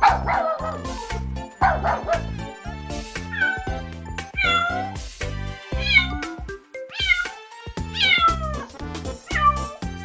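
Domestic cat meowing again and again, each call falling in pitch, over background music with a steady beat.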